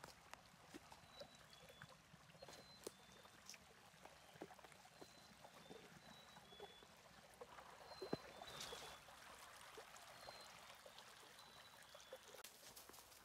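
Very faint shallow rocky stream trickling, with scattered light clicks and a series of short high peeps; a brief soft rush of noise comes about two thirds of the way in.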